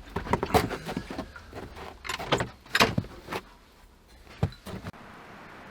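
Clicks, knocks and clatters of a vintage oil lantern and a small lamp-oil bottle being handled while the lantern is refilled. The knocks are sharp and irregular, with the loudest a little under a second in and around the third second. About five seconds in they give way to a steady hiss.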